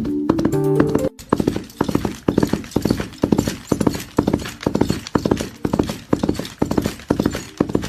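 Clip-clop of horse hoofbeats in a steady, even rhythm, after a second of music that cuts off abruptly.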